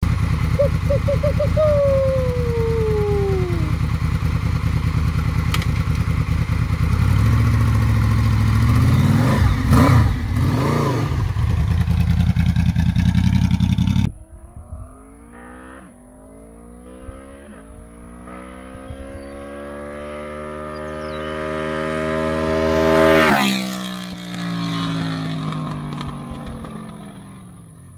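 Honda VFR800 V4 engine through a Delkevic aftermarket exhaust, idling with a few throttle blips. After a sudden drop midway, the bike accelerates up through the gears and passes by with a falling pitch about three quarters in, then fades away.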